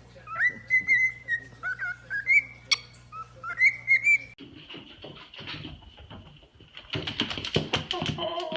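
A bird whistling a quick string of short notes that glide up and down. About four seconds in, this cuts off suddenly, giving way to scuffling and clattering noise under a faint steady high tone.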